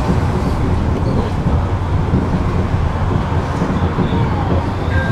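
Tram in motion: a steady low rumble from the wheels on the rails and the running gear.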